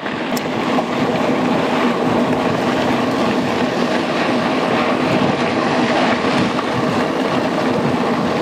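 Mountain bike riding fast: a steady rush of wind on the microphone and tyre noise, with a faint steady hum underneath.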